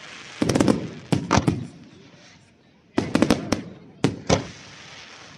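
Aerial fireworks shells bursting in quick clusters of sharp bangs, two volleys a couple of seconds apart, with crackling from the sparkling shells in between.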